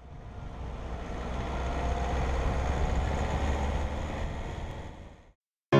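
A vehicle driving along a road: a steady low rumble of engine and tyres with wind noise, fading in and then fading out a little after five seconds.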